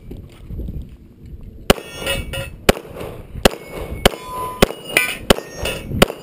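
Smith & Wesson M&P9 Pro 9mm pistol fired eight times in quick succession, starting about two seconds in, with steel targets ringing after the hits.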